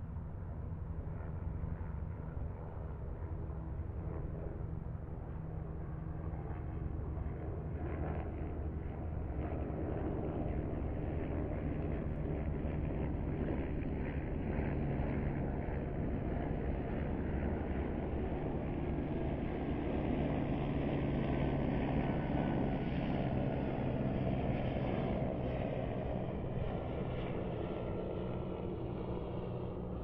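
Distant highway traffic: a continuous low rumble and hum that swells through the middle and eases again near the end.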